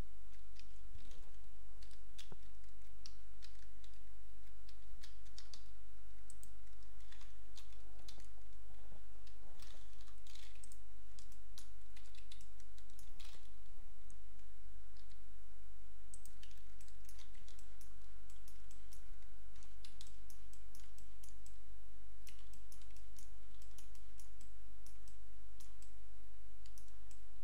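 Computer keyboard and mouse clicks, irregular and scattered, as keys like Ctrl and the middle mouse button and scroll wheel are worked, over a steady low hum.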